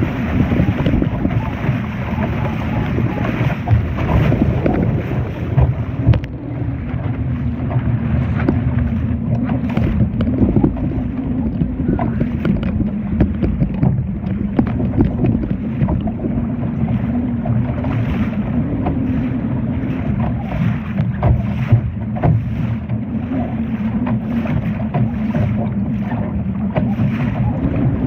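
Steady low rumble of wind buffeting the microphone aboard a Laser sailing dinghy under way, with water splashing and rushing against the hull.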